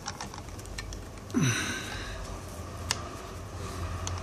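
Nylon paracord handled by hand on a weaving jig: light scattered clicks and rustles as the strands are moved and pulled through, with one short breathy sound about a third of the way in, over a low steady hum.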